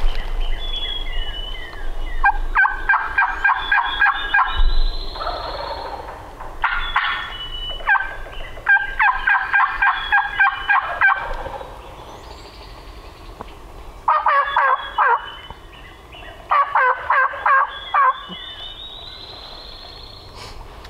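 Wild turkey gobbler gobbling repeatedly from its roost tree: several rapid, rattling gobbles in a row, with songbirds calling faintly in between.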